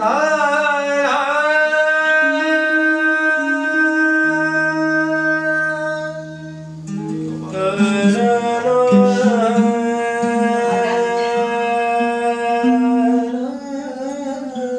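A voice singing long, held notes, sliding up into the first one, over a nylon-string acoustic guitar being plucked. The singing dips briefly about six seconds in, then a new phrase starts.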